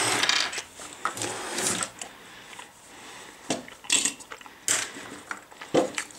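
Hands handling small plastic toy parts on a tabletop: a string of short rustles, clicks and knocks, the sharpest about three and a half, four and nearly five seconds in.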